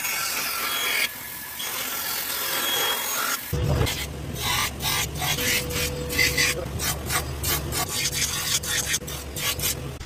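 A hand-made comb blank being scraped and rasped, then from about three and a half seconds in a motor-driven grinding wheel running with a low hum while the blank is pressed against it in many short rasping strokes.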